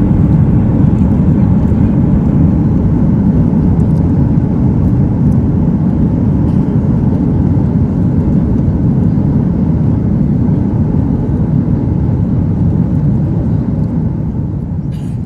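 Loud, steady rumble inside an airliner cabin as the jet rolls out and slows on the runway after landing. The rumble eases off a little in the last few seconds.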